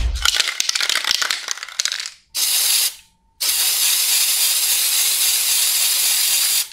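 Aerosol spray paint can: a rattle for about two seconds as the can is shaken, then a short spray hiss and a longer steady hiss of about three seconds.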